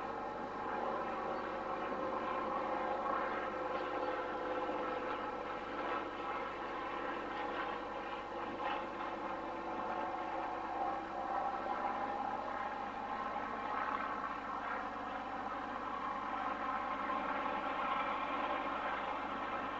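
A steam locomotive working hard at the head of a passenger train, heard at a distance as a steady, continuous sound from its exhaust and running gear, with tones that slowly fall in pitch.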